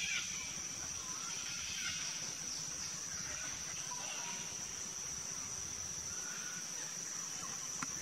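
A steady high-pitched insect drone runs without a break, with faint scattered bird calls under it in the forest.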